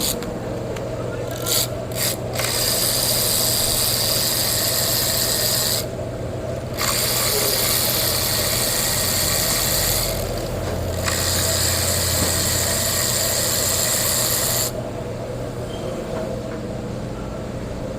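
Three long hissing sprays, each lasting three to four seconds, over a steady low hum.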